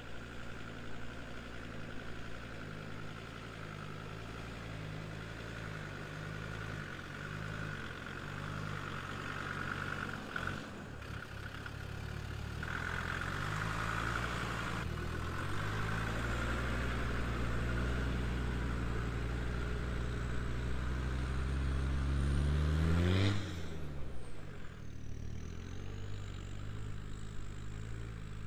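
Land Rover Defender 90's 2.5-litre five-cylinder Td5 turbodiesel driving on a dirt track. Its engine note builds in level and pitch as it approaches, then falls sharply in pitch and drops away about two-thirds of the way through as it passes, running fainter afterwards.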